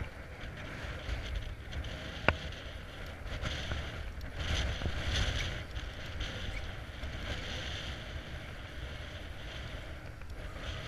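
Wind buffeting the microphone with a steady low rumble, swelling for a couple of seconds in the middle, and a single sharp click a little over two seconds in.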